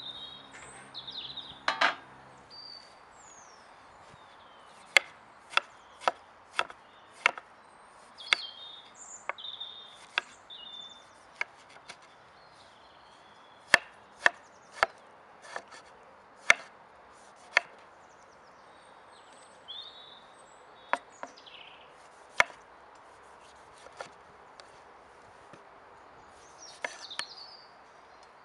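Chef's knife slicing tomatoes on a wooden chopping board: sharp knocks of the blade hitting the board, in short irregular runs about half a second apart. Small birds chirp between the cuts.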